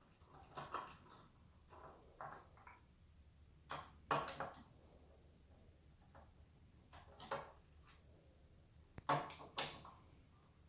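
Scattered short clicks and scrapes of a screwdriver and loose screws being handled while unscrewing the battery and main board of a Xiaomi M365 electric scooter, about a dozen small knocks spread irregularly with brief pauses between them.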